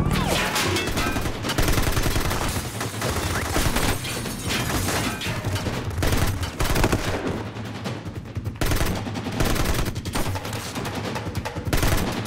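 Sustained automatic gunfire from submachine guns: many rapid shots in long, overlapping bursts that start abruptly and hardly let up.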